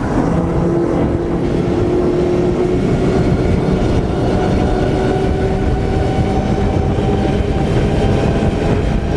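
Four Mercury Racing 450R supercharged V8 outboards running hard at speed: a loud, steady drone with several held engine tones over a rush of water noise.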